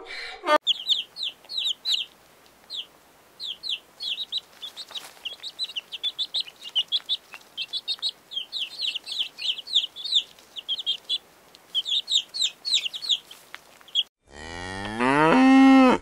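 Baby chicks peeping: a rapid, irregular string of short, high cheeps that slide downward. Near the end a cow moos once, loudly, its pitch rising. At the very start, the last half-second of a donkey's bray.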